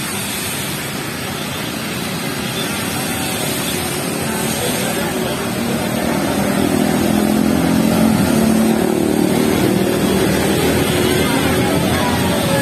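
Steady hiss of heavy rain under an engine that swells to its loudest about two-thirds of the way in. The engine's pitch falls as it passes near the end.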